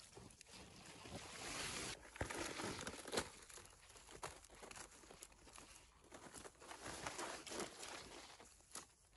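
Gloved hand rustling through dry grass and fallen leaves and picking wild mushrooms from the forest floor: faint crackling and scattered clicks, with a louder click about three seconds in.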